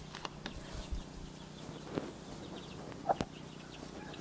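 Faint chickens clucking a few times, with a sharp click just after three seconds in.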